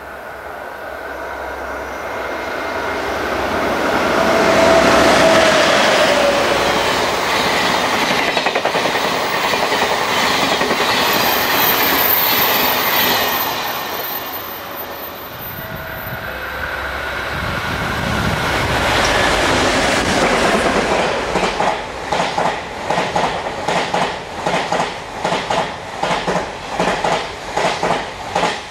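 EF81 electric locomotive and Twilight Express sleeper coaches running through a station: rising to a loud rumble of wheels on rail as it approaches and passes, then fading. In the second half the coaches pass close by with a regular clickety-clack of wheels over rail joints, about two beats a second.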